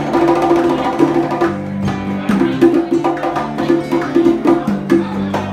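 Live instrumental music: an acoustic guitar playing, with a steady run of sharp percussive hits.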